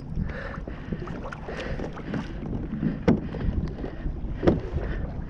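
Wind buffeting the microphone and water moving around a kayak hull on open sea, with two sharp knocks about three and four and a half seconds in.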